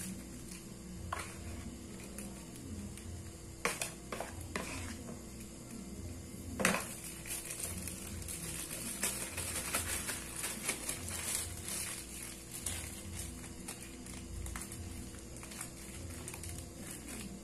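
A plastic bag crinkling and rustling as hands squeeze a lump of soft flour-dough bait into it and wrap it tight, with a few sharp clicks and knocks near the start, over a steady low hum.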